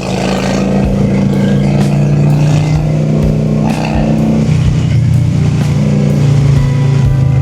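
Honda Shadow cruiser's V-twin engine running steadily under way, its note shifting in pitch about halfway through.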